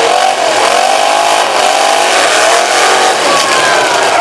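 Several demolition derby car engines revving hard together, their pitches overlapping and rising and falling as the drivers work the throttles.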